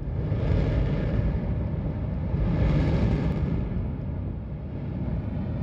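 Deep rumble of a volcanic eruption, a noisy roar heaviest in the low end that swells and eases twice.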